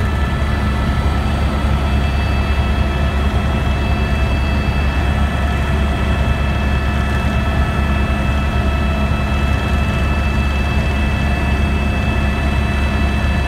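Helicopter in flight, heard from on board: a loud, steady low drone with a constant high whine of several steady tones over it.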